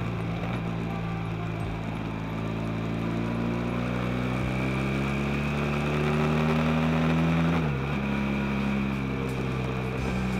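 BMW F 800 GS parallel-twin engine pulling under way, its note rising slowly. About three-quarters of the way through the note dips briefly, then holds steady, over a constant rush of wind and road noise.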